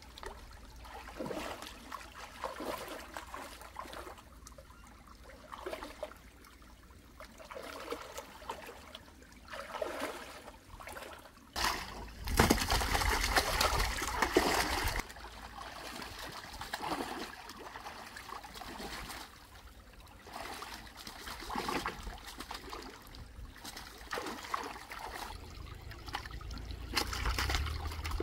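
Shallow water splashing and sloshing as hands grab at fish in a muddy pool. A louder stretch of splashing starts about twelve seconds in and lasts some three seconds, as a caught fish thrashes in the water.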